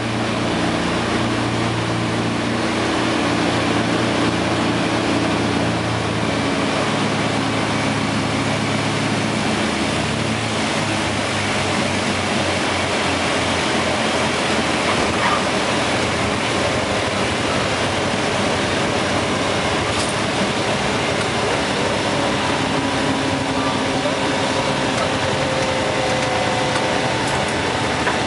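The DC-3 Dakota's twin radial piston engines are heard from the flight deck during the landing, with a steady rushing noise. The engines' deep pitched drone fades about six seconds in, leaving mostly the broad rush.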